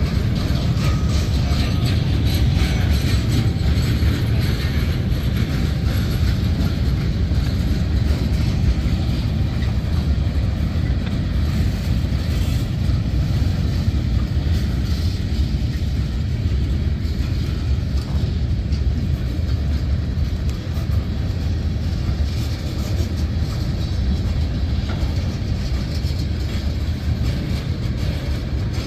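Freight cars of a manifest train rolling past: a steady low rumble of steel wheels on rail.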